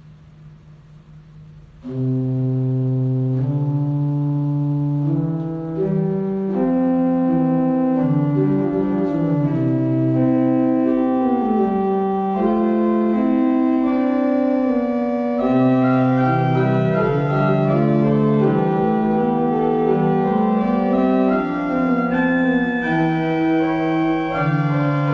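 Church organ playing a piece in held chords with a moving bass line, coming in suddenly about two seconds in after a faint hum.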